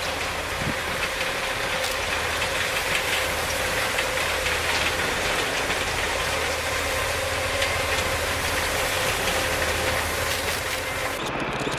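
A large snow-clearing machine running steadily: a continuous engine drone under a wide rushing hiss, with a steady hum. The sound changes abruptly near the end.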